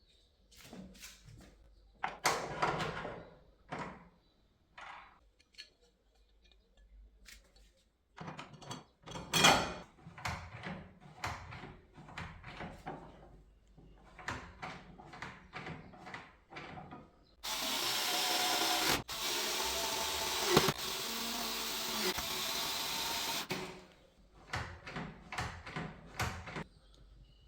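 Hands and tools working on a door handle and lock mechanism: a run of clicks, knocks and rattles, broken in the middle by about six seconds of a steady noisy whir. More clicks follow it.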